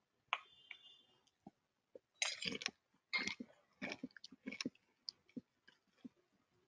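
Irregular clicks and short rustling noises close to the microphone, with a brief high tone about a third of a second in.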